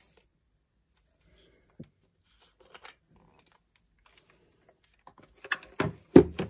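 Handling noise from a camera body and a lens with its mount adapter: faint scattered clicks and small knocks, then a few louder knocks and thuds near the end.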